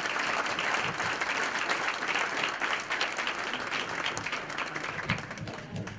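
Audience applauding: dense, steady clapping from many hands that starts to thin out and fade near the end.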